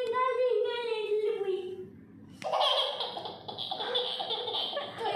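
A child's voice holding a long, wavering note, then, about two and a half seconds in, a young boy laughing hard, breathy and unbroken.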